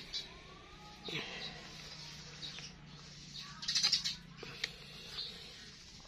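Light handling noises as a cordless hammer drill is turned over in the hands: soft rustles and small clicks, the loudest about two-thirds through, over a faint low hum. A bird chirps faintly in the background.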